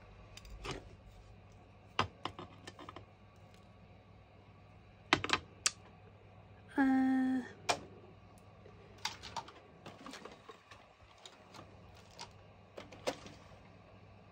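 Scattered light clicks and knocks of a whitewashed wooden miniature staircase being handled and bent on a cutting mat as a section is worked loose to break off, with a sharper cluster of knocks about five seconds in. A short pitched sound lasting under a second follows just after.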